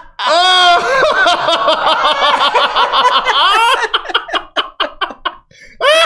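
Two men laughing hard: one long, high laugh that breaks up about four seconds in into a run of quick, short pulses that trail off.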